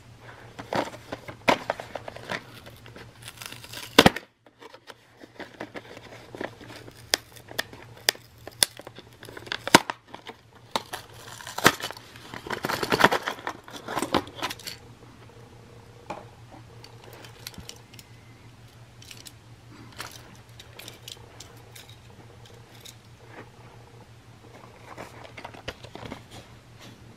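Stiff clear plastic blister packaging crinkling and crackling as it is pulled off its card, with many sharp clicks and taps. The handling is busiest in the first half and thins to scattered clicks later, over a steady low hum.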